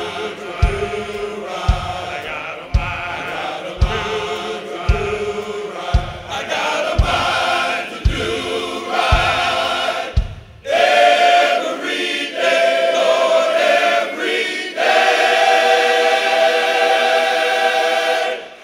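Men's gospel choir singing in full voice over a low beat that falls about once a second. About ten seconds in the beat stops and the choir holds long sustained chords on its own, breaking off right at the end.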